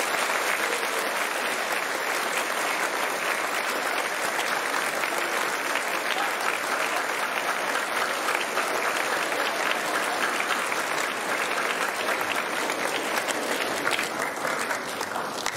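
Audience applauding steadily, many hands clapping at once, dying away near the end.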